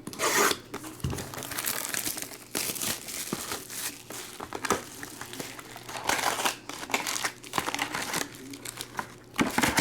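Plastic wrapping crinkling and tearing in a run of irregular rustles as a box and packs of trading cards are opened.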